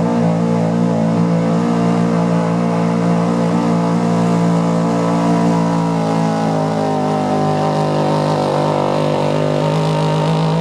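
Chevrolet square-body pickup's engine held at high, steady revs under full load while pulling a weight sled.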